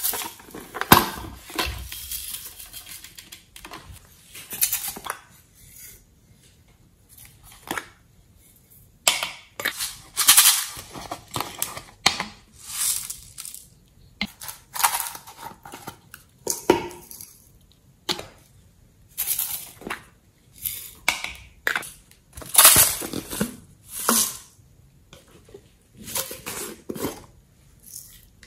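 Glitter, sequins and confetti shaken and poured out of small plastic containers in repeated short bursts of rattling hiss, with clicks and taps as the plastic cases and tubs are opened and handled.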